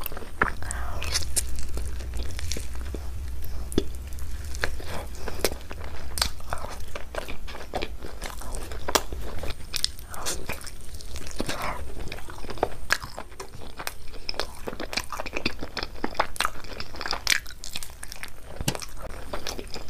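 A person chewing and biting curried meat off the bone: irregular wet mouth clicks, smacks and crunches, one after another.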